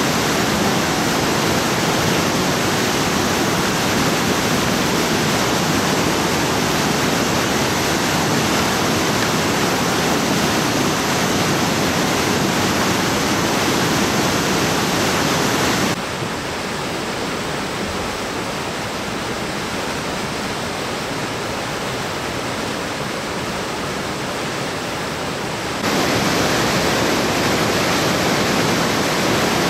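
Fast-moving floodwater rushing, a steady noise of water. About halfway through it turns quieter and duller for about ten seconds, then comes back just as before.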